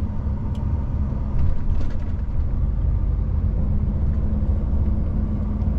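Steady, even drone of a semi-truck's diesel engine and road noise, heard from inside the cab while cruising.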